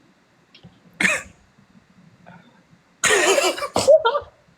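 A person coughing: one short cough about a second in, then a louder, longer fit of coughing about three seconds in.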